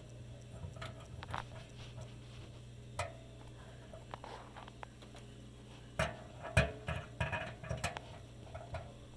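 Small clicks and knocks of metal parts being handled and fitted together, over a steady low hum. The knocks come singly at first, then in a quick cluster about six seconds in.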